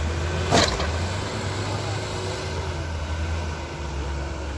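An off-road 4×4 vehicle's engine running steadily with a low hum, its pitch wavering slightly. There is one sharp knock about half a second in.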